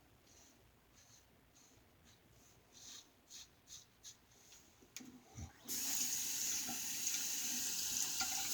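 A New Gem safety razor scrapes through lathered stubble in short, faint strokes. About five and a half seconds in, a faucet is turned on after a couple of knocks, and water runs steadily into the sink, louder than the shaving.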